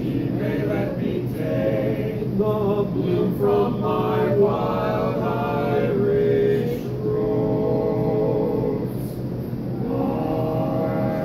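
Four-man male vocal quartet singing a cappella in close harmony, holding long chords, with a brief break about seven seconds in before the next held chord.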